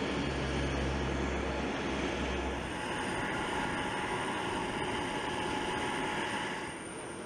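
Steady aircraft engine noise on an airfield. A low rumble underneath fades out after about two and a half seconds, and a faint steady whine runs from about three seconds in until near the end, where the noise drops a little.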